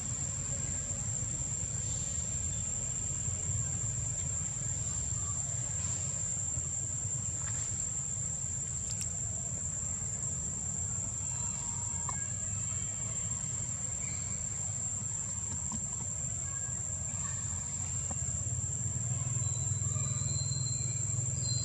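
Steady high-pitched drone of forest insects, over a low rumble that grows louder near the end.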